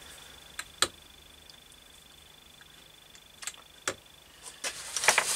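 A few light clicks and taps of metal engine parts being handled, the two-stroke's piston and cylinder barrel, then a rubbing noise near the end.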